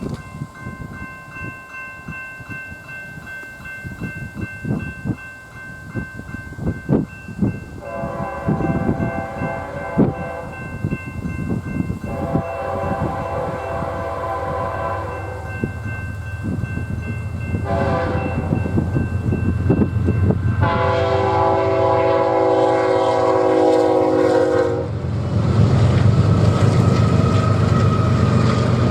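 Diesel locomotive horn blowing the grade-crossing signal: two long blasts, one short and a final long one, each a multi-note chord, over the steady ringing of a crossing bell. The low rumble of the approaching train builds and becomes loudest near the end.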